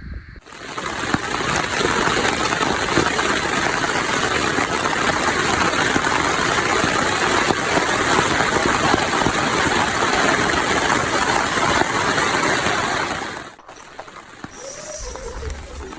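Heavy rain drumming steadily on a tent, cutting off abruptly near the end.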